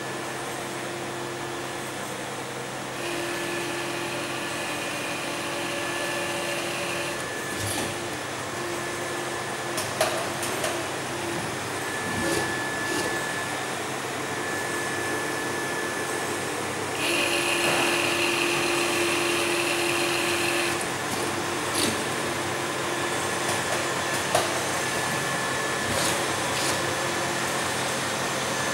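Arburg injection moulding machine running: a steady hum from its electric motor and hydraulic pump, with a held whine. Twice it grows louder with a higher whine for about four seconds, and a few short clicks and knocks come between.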